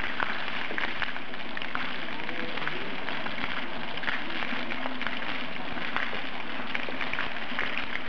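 Water from a stone-pillar fountain spilling over the columns and splashing onto the paving: a steady splashing hiss with many small sharp drips and patters.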